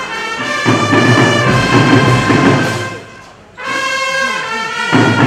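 Brass band music with held trumpet-like notes over a full accompaniment; it dips briefly about three seconds in, then comes back loud.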